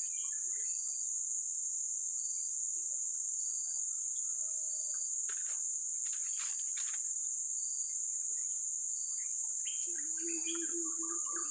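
Steady, high-pitched drone of an insect chorus, with a short chirp repeating a little more than once a second. A few soft clicks come around the middle, and a brief low hum near the end.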